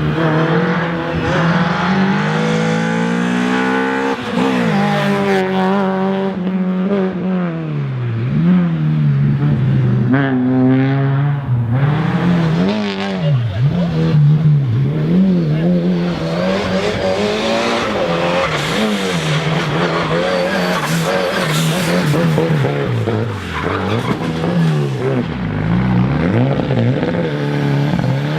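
Race car engine at high revs, its pitch rising and falling again and again as it accelerates, shifts and brakes through the course.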